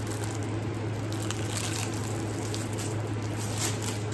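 A few soft crinkles from a clear plastic packaging bag as a small hot water bottle is handled and pulled out of it, over a steady low hum.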